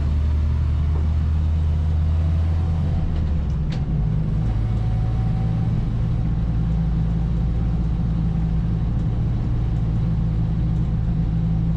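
Series 3 Land Rover running on the road, its engine and old gearbox giving a steady low drone with groans and whines. About four seconds in there is a click and the engine note changes.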